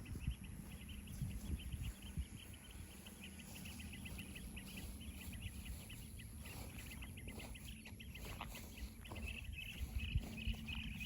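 Rapid, evenly repeated high chirping from small animals, getting louder near the end, over a low rumble of wind or handling on the microphone.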